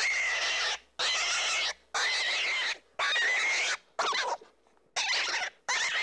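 Baby rabbits calling: a run of high-pitched squeals about one a second, each under a second long, the last few shorter and broken.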